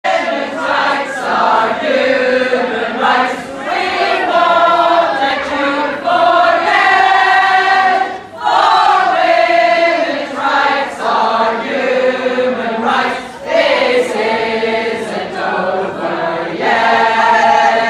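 A group of voices singing together, holding long notes in phrases with short breaks between them.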